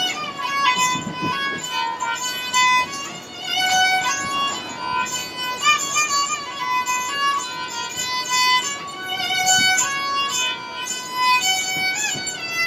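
Rajasthani folk sarangi bowed, playing a high melody of held notes joined by short slides between pitches.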